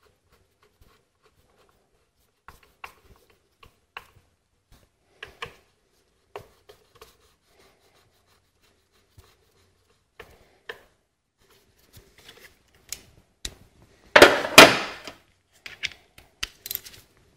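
Faint, scattered small metal clicks and scrapes as the ignition coil's bolts are threaded by hand into the engine's valve cover. About fourteen seconds in, a louder clatter lasts about a second.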